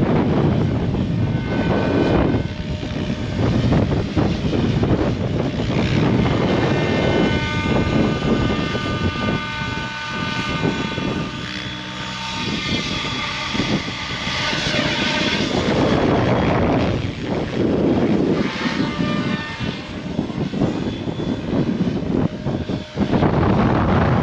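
Goosky RS7 electric RC helicopter flying, its motor and rotor giving a steady whine that is clearest in the middle, with wind buffeting the microphone throughout.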